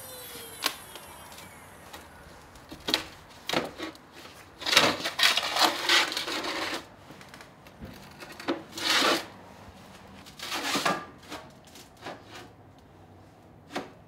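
A metal sheet being handled and worked at a metal-shaping machine: scattered knocks and clanks with a few longer scraping, rasping bursts, the longest and loudest between about five and seven seconds in.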